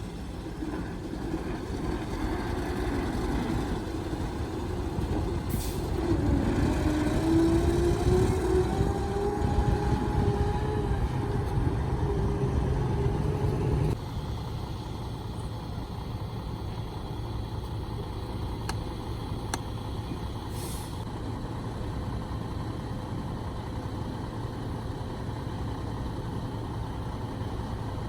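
Heavy diesel truck engine running. A few seconds in it revs up, its pitch rising and holding high, as if working under load. Partway through the sound drops abruptly to a quieter, steady engine running at low revs.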